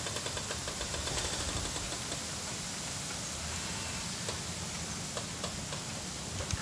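Steady outdoor ambience by a river: an even hiss with a low, wavering rumble and a few faint ticks in the first couple of seconds.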